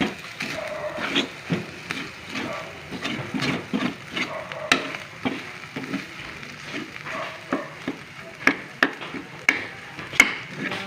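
A spatula stirring and scraping corned beef around a frying pan, with irregular scrapes and several sharp taps against the pan, mostly in the last few seconds, over a light sizzle of butter in the still-hot pan.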